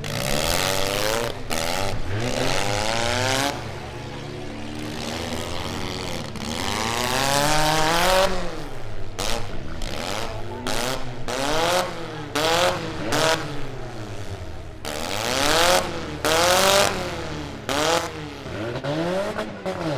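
Several small four-cylinder demolition derby cars' engines revving hard, the pitch climbing and dropping again and again as they accelerate, back off and shove into one another, with more than one engine heard at once.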